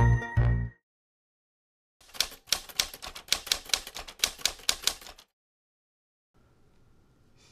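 Typewriter keys clacking at about four strokes a second for roughly three seconds, a sound effect for on-screen text being typed out. Before that, a bright music jingle ends in the first second.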